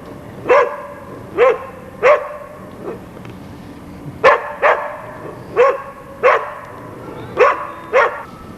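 A dog barking repeatedly, about ten short sharp barks, often two in quick succession, with a pause of about a second near the middle.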